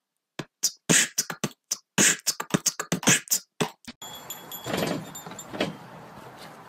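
Beatboxing-style vocal percussion: a fast, uneven run of kick, snare and click sounds with silence between hits. It lasts about three and a half seconds and stops abruptly. It gives way to a quieter steady background with a couple of soft thumps.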